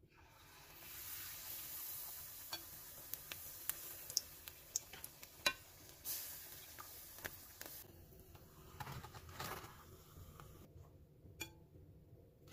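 Battered perilla leaf deep-frying in hot oil: a steady sizzle with many sharp crackling pops as the batter puffs. The sizzle drops away near the end, followed by a single click.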